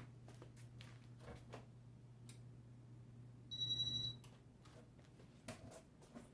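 A Casablanca Victorian ceiling fan's Emerson K55 motor running on its top speed, speed 6, with a faint steady low hum and scattered light ticks. About halfway through, a short high-pitched electronic beep sounds for under a second.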